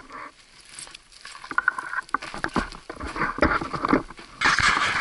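Footsteps on a rocky, gravelly dirt trail: irregular crunching and clicking steps, with a louder scuffing stretch near the end.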